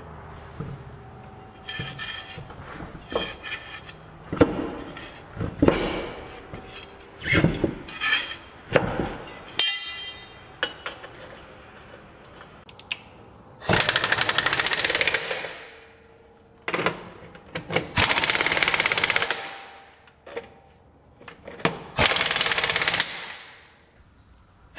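Impact wrench working the bud nuts on a truck's dual rear wheel: a string of short bursts over the first ten seconds, then three longer runs of about a second and a half each, each trailing off.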